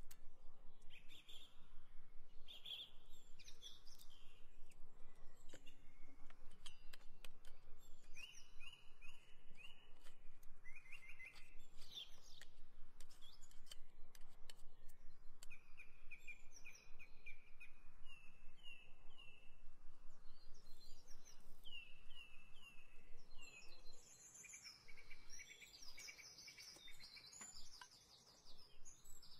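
Small songbirds calling, with short repeated chirps and quick trills of a few notes, again and again. A few light clicks are scattered through.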